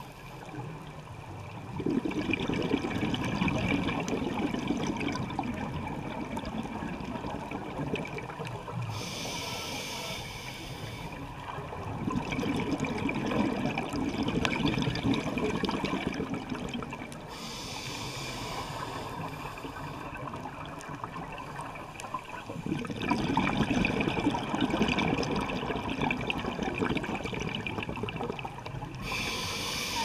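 Scuba regulator breathing underwater: three long bubbling exhalations roughly ten seconds apart, each followed by a shorter hiss of inhalation through the regulator.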